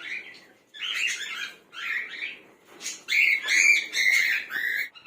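Cockatiels calling: a string of short calls with gaps between them, loudest and most continuous in the last two seconds.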